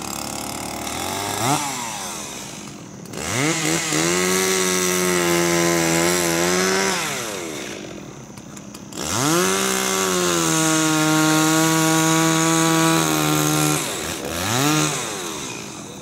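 Gasoline chainsaw cutting into a wooden log. It idles, then twice runs up to full throttle for about three to four seconds, its pitch sagging and wavering under the load of the cut the first time, and falls back to idle between. There are short throttle blips near the start and near the end.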